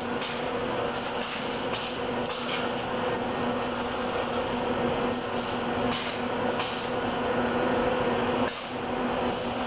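Motoman SDA10 dual-arm robot running, a steady mechanical hum with a constant low tone, broken by a few short rasping noises as its arms move and work.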